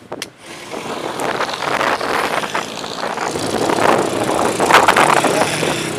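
Road noise while cycling along a city road: traffic and wind rushing over the microphone, rising sharply about half a second in and loudest near the end.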